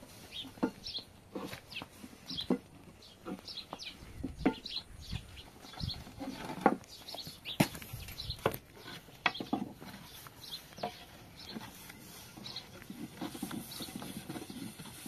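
Short, high bird-like chirps repeating every second or so, a few lower animal calls, and a handful of sharp knocks.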